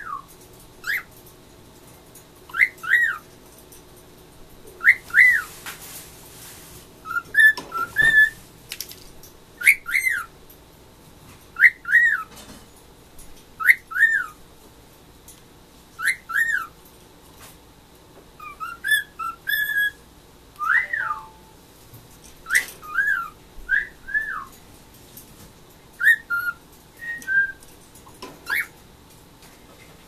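Cockatiel whistling short rising-and-falling notes, often in pairs, repeated every second or two.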